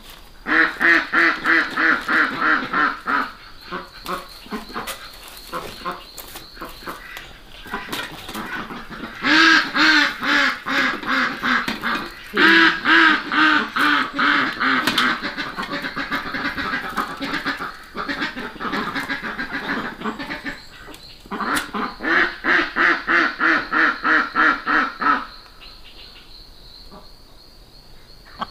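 Domestic ducks quacking in several rapid runs of about four or five quacks a second, some runs falling in pitch as they go.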